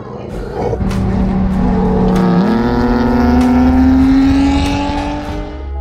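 Car engine revving under hard acceleration, its pitch jumping up about two seconds in and then climbing steadily, over low road rumble.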